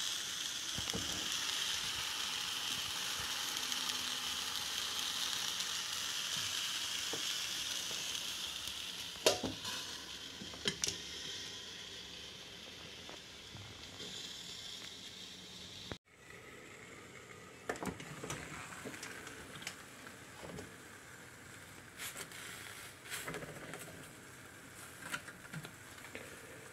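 Red peppers sizzling on the hot stone plate of a G3 Ferrari Napoletana electric pizza oven, a steady hiss that is loudest for the first eight seconds and quieter after a cut about sixteen seconds in. A few sharp clicks and knocks come through, the loudest around nine to eleven seconds in.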